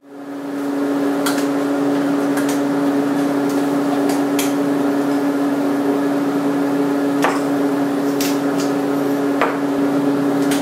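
A metal spoon clinking now and then against a stainless steel mixing bowl as guacamole is stirred, about half a dozen sharp clinks. Under it runs a steady, even hum with one strong low tone.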